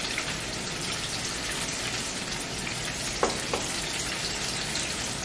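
Battered chicken wings deep-frying in hot oil: a steady sizzle, with two light clicks a little after three seconds in.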